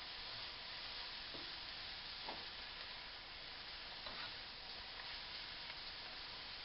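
Broccoli and snap peas sizzling in butter and oil in a pan, a steady hiss, with a few faint clicks as they are stirred.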